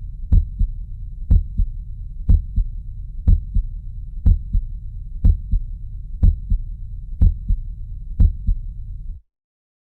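Normal heart sounds, S1 and S2, heard as a steady lub-dub: a stronger beat followed closely by a weaker one, about once a second, over a low hum. The recording cuts off near the end.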